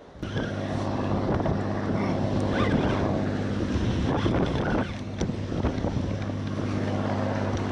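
A boat motor running steadily, a constant low hum, with wind buffeting the microphone.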